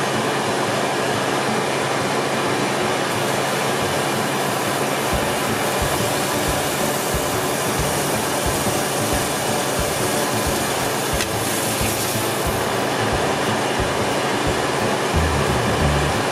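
Steady, loud rushing noise that holds even throughout, with faint low thumps recurring from about five seconds in.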